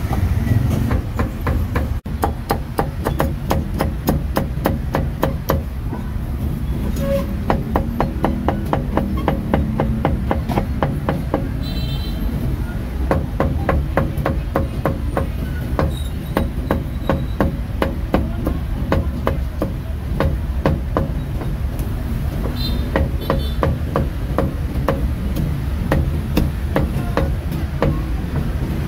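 Cleaver chopping roast meat, quick regular chops repeating several times a second, over a steady low street rumble.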